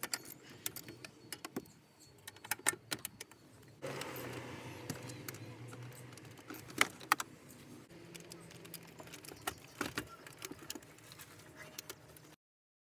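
Irregular light clicks and rattles of metal and plastic as the stereo head unit is unbolted and worked out of a Toyota Camry's dashboard.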